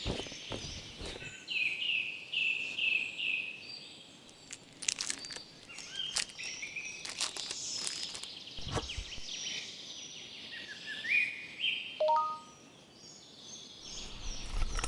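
Birds chirping and calling: a run of about five quick repeated chirps near the start, then scattered calls, with a few sharp clicks in the middle.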